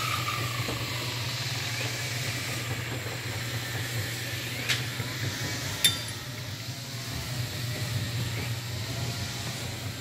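Steady low hum and hiss of an outdoor building site, with two sharp metallic clinks about five and six seconds in, the kind a mason's tool makes striking concrete block or steel.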